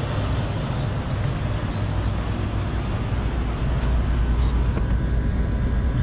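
Packaged heat pump running: a steady low compressor hum under the even rush of the condenser fan's airflow.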